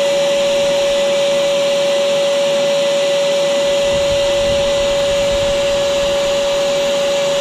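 Vacuum cleaner running steadily with a constant whine. It is powering a homemade vacuum fluid extractor that is drawing engine oil out of a generator through the dipstick tube.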